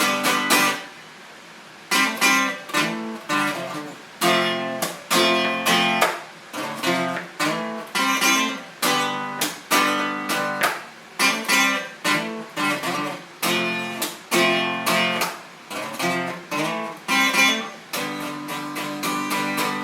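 Instrumental break of a song: guitar chords strummed in a steady rhythm, with a brief pause about a second in.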